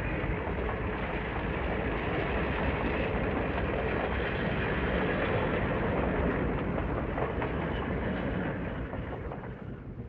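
Train on the rails: a dense, steady rumbling noise with no clear bell strokes standing out, fading out over the last two seconds.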